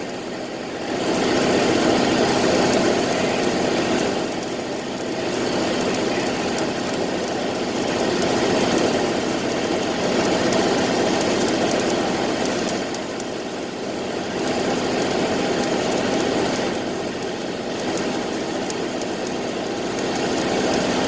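Electric arc welding: a continuous crackling hiss that swells and eases every few seconds, over a faint steady hum.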